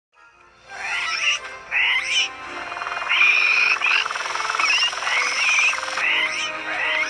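Dinosaur creature sound effect: a series of wavering, warbling animal calls repeating about once a second, with one longer call about three seconds in.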